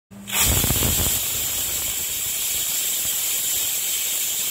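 Stovetop pressure cooker venting steam with a loud, steady hiss as its weight is lifted by hand to release the pressure after cooking. The hiss starts with a brief rumble about a quarter second in.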